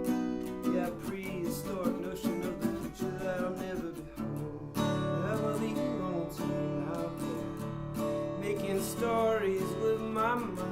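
Acoustic guitar strumming chords in an instrumental break of a song, with a bending lead melody line over them. The chords grow fuller about halfway through.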